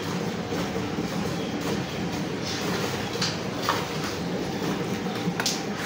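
Hand-milking a cow: steady rhythmic squirts of milk hissing into a metal bucket already partly full of frothy milk.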